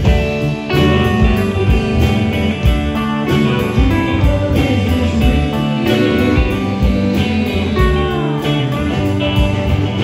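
Live band music led by an electric guitar played through an amplifier, over a steady beat. A note slides down near the end.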